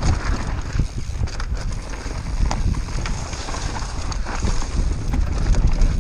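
Wind buffeting the camera microphone during a fast mountain-bike descent on a rough dirt trail, with a steady low rumble and frequent rattles and knocks from the bike bouncing over the ground.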